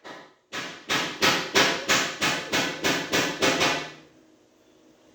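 A hammer striking repeatedly, about ten blows at roughly three a second, from work fitting a new door. Each blow rings briefly, and the hammering stops about four seconds in.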